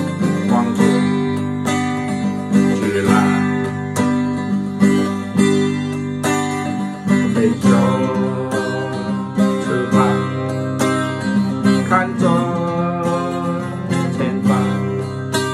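Acoustic guitar strummed in a steady rhythm, with a man singing over it in places.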